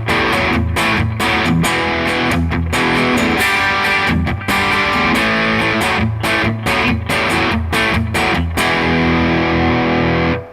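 Gibson electric guitar played through a lightly distorted amp: strummed chords and riffs broken by short muted stops, then a chord held and left ringing near the end.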